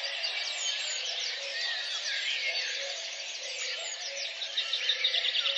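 A dense chorus of many birds chirping and twittering, with a rapid trill near the end.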